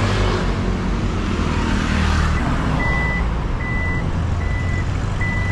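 A vehicle's reversing alarm beeping: four short, evenly spaced high beeps starting about halfway through, over a steady low engine rumble.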